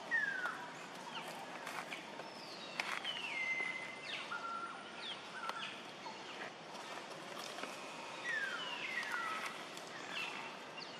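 Repeated high whistled animal calls, each gliding downward and some ending in a short held note, over steady outdoor ambience, with scattered light clicks.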